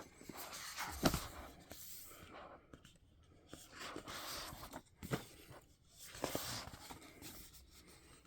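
Stiff cardstock pages of a photo book being handled and turned: soft irregular rustles with a few sharper taps, the sharpest about a second in and about five seconds in.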